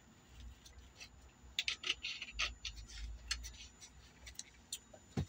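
Faint handling noises from a plastic soda bottle being drunk from and handled: a cluster of small clicks and crinkles between about one and a half and three and a half seconds in, with a few scattered ticks after, over a low steady hum.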